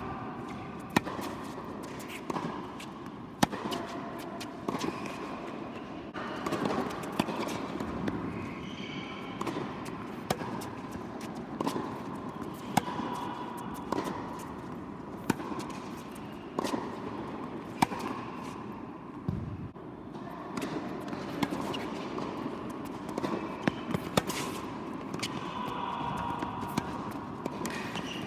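Tennis rallies on an indoor hard court: rackets striking the ball and the ball bouncing, sharp single hits about every second or so, in a large hall.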